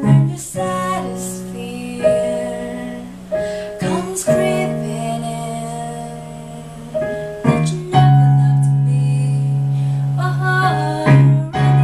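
Roland RD-150 digital stage piano playing sustained chords, with women singing a pop ballad melody over it.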